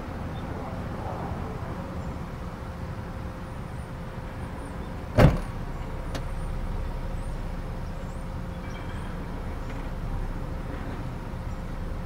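A 2020 Ford Explorer Platinum's power liftgate closing, ending in one loud thud as it shuts about five seconds in, followed by a faint click. Under it, the SUV's engine idles steadily.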